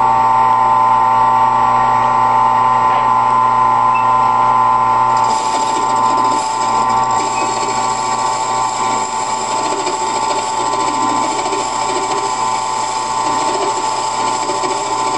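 A wood lathe converted to cut metal runs steadily with a whine of several steady tones while the tool turns a cast iron faceplate, with no chatter from the cut. More high-pitched hiss joins about five seconds in.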